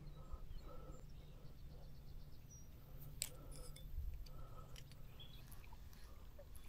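Quiet pond-bank background with a faint steady low rumble, and a few small clicks and ticks as a treble-hooked fishing lure is handled in the fingers.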